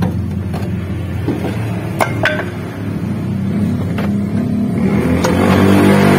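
A few sharp metal clinks, two close together about two seconds in, then single ones about four and five seconds in, as the steering knuckle and tools meet the new lower ball joint on a Mitsubishi L300 front suspension. The clinks sit over a steady droning background.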